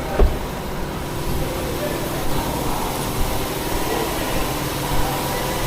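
A vehicle engine running steadily, with a single thump about a quarter second in.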